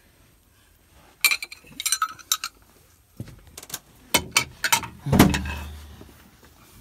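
Steel wrenches clinking and knocking against hydraulic hose fittings as a fitting is worked loose, a string of sharp metal clanks starting about a second in, the loudest about five seconds in with a short low ring after it.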